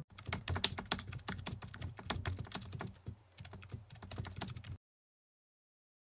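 Rapid, irregular clicking of computer keyboard typing, used as a sound effect with a title card, cutting off suddenly near the end.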